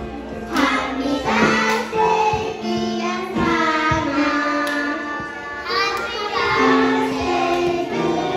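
Young children singing a song together with music.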